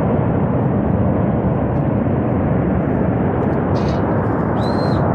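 Flash-flood river rushing with a loud, steady, unbroken noise of churning water. A short high whistle-like tone sounds near the end.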